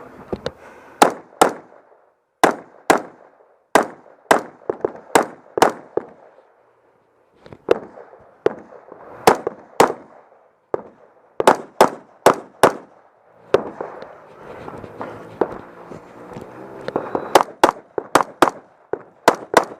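A string of rifle shots at a tactical match stage, sharp cracks that often come in pairs about half a second apart, with short pauses between strings.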